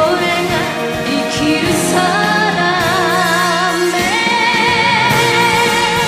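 Japanese enka ballad music: a lead melody held on long notes with a wide vibrato, stepping up twice, over a sustained band accompaniment.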